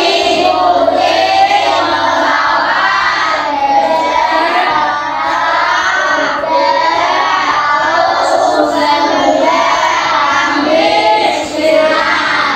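A group of children singing a song together, without a break, stopping near the end.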